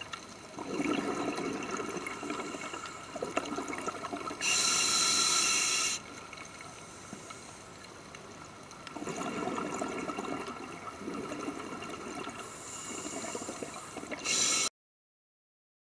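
Scuba regulator breathing heard underwater: bubbling exhalations with a loud hiss of inhalation through the regulator about four to six seconds in, and another brief hiss near the end. The sound then cuts off abruptly.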